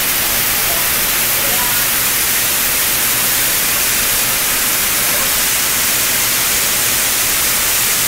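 Heavy rain pouring down: a steady, loud hiss, with water streaming off the roof edge.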